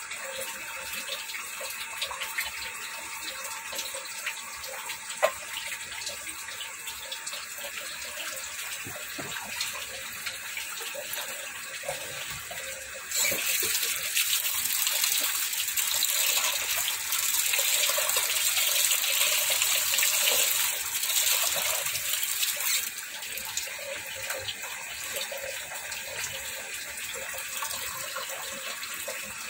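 Ginataang tilapya simmering in a pot: the coconut milk bubbling with a steady hiss and small pops. There is one sharp click about five seconds in. Past the middle, a louder hiss comes up for about ten seconds, then drops back.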